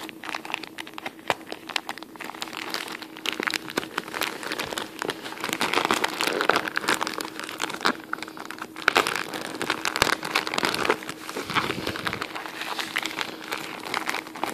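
A plastic mailer bag crinkling and rustling in dense, irregular crackles as hands pull and tug at it and its taped seal to get it open.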